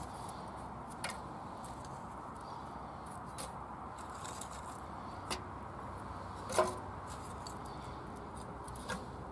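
Split wooden kindling sticks knocking against the steel body and door of an Anevay Frontier wood-burning stove as they are pushed into the firebox. There are a few sharp knocks, the loudest about two-thirds of the way through with a short ring, over a steady hiss.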